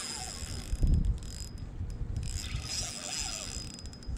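Small spinning reel's drag buzzing as a hooked striped bass runs and strips line off an ultralight rod. The buzz pauses briefly around the middle, and there is a low thump about a second in.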